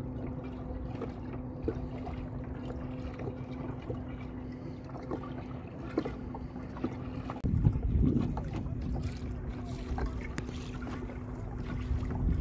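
A kayak's electric motor humming steadily while the kayak moves over choppy water, with wind buffeting the microphone about seven and a half seconds in and again near the end.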